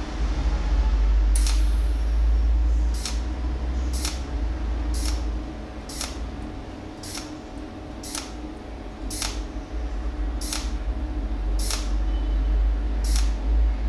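Cold welding machine firing pulse after pulse through its tungsten electrode, each pulse a sharp snap that lays another overlapping spot weld along a steel seam, about once a second over a steady low hum.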